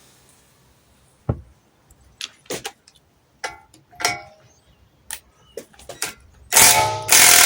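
A few light metallic clinks and knocks from tools being handled, then about six and a half seconds in an impact wrench starts hammering loudly on the strut's top nut, held by a chrome socket while the coil spring is compressed.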